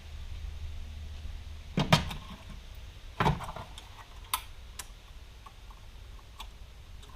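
A few sharp clicks and knocks, the louder ones about two and three seconds in and lighter ones after, from parts being handled while an irrigation controller and its sensor wiring are fitted, over a low steady hum.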